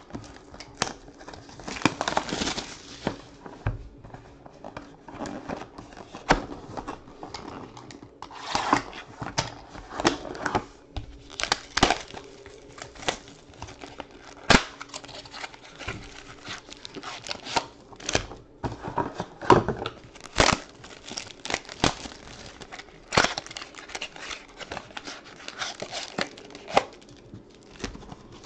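Clear plastic shrink-wrap and foil trading-card packs crinkling and tearing as a sealed 2013-14 Panini Select box is unwrapped and its packs are pulled out and stacked. Irregular sharp crackles come one after another.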